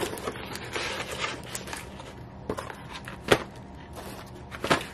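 Small cardboard pie boxes being handled and stacked: scattered rustling and clicks, with two sharp knocks, the louder one a little past three seconds in.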